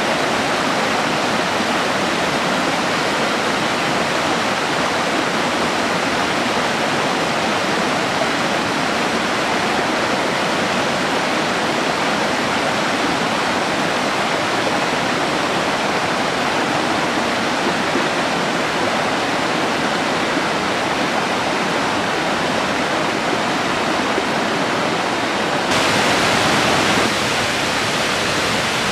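Clear mountain creek rushing over rocks and small cascades, a steady rush of water. About three seconds before the end the sound changes abruptly and is briefly louder, switching to a waterfall pouring into its pool.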